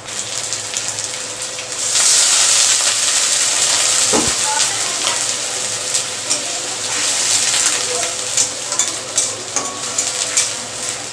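Onions and ginger-garlic paste sizzling in hot oil in a metal kadai, the sizzle growing loud about two seconds in, while a metal spatula scrapes and stirs against the pan. A dull knock sounds about four seconds in.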